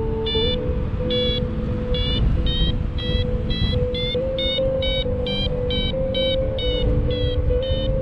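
Paraglider variometer beeping, short beeps about two to three a second that shift a little in pitch, over a steady lower tone that steps up and down and wind rushing on the microphone. The beeping is the vario's climb signal: the glider is in rising air.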